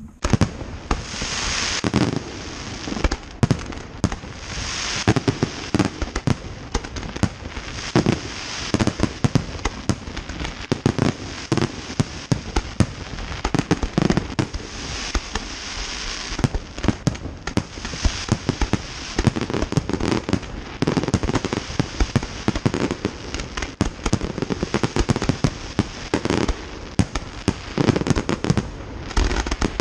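Fireworks display: a dense, continuous barrage of aerial shell bursts, with bangs several times a second over a crackling hiss. It begins suddenly at the start.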